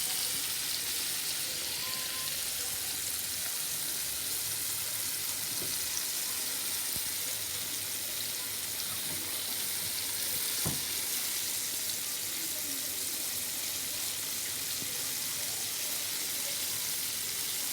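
Flour-dusted fish fillets deep-frying in hot oil: a steady sizzle, with a single light knock about ten seconds in.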